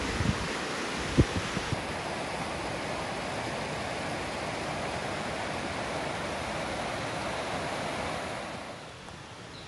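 Steady rushing of water flowing over rocks in a small forest stream. A few low thumps come in the first two seconds, and the rushing drops away near the end.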